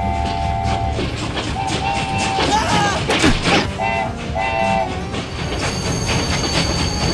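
Approaching train with a rumble and clattering wheels, its horn sounding chord-like blasts: one ending just after the start, another about a second and a half in, and two short blasts near the middle. A loud screech with falling pitch comes about three seconds in.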